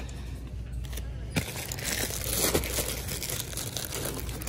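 Plastic-wrapped pack of paper towels crinkling and rustling as it is handled, with a sharp knock about a second and a half in.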